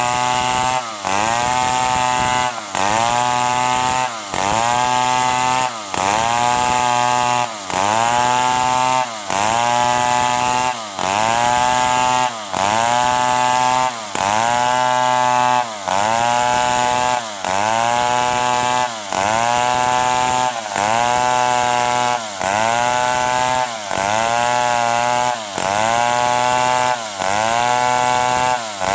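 Stihl 070 two-stroke chainsaw cutting wood, running hard with a short drop in revs and loudness about every second and a half to two seconds. Each time it picks straight back up, in an even repeating rhythm.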